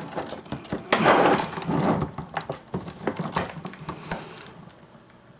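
Metal clicking, scraping and rattling as a lock pick and tension wrench work an Ace rekeyable padlock and the padlock is handled. Busiest in the first couple of seconds, then it thins out and goes quiet near the end.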